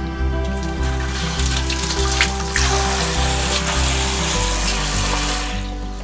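Background music over the steady rush of running water, like a shower spray, which fades out shortly before the end.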